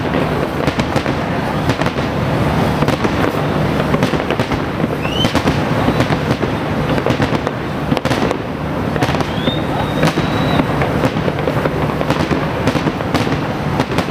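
Large aerial fireworks display going off in a dense, continuous barrage of bangs and crackles. A short rising whistle sounds about five seconds in, and a longer whistle about nine to ten seconds in.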